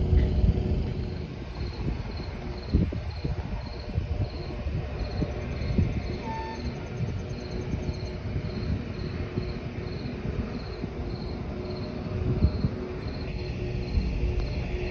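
A cricket chirping at a steady rhythm, about three short high chirps a second, over a low, uneven rumble.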